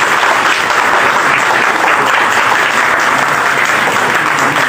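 Crowd applauding, a loud, dense and steady clapping.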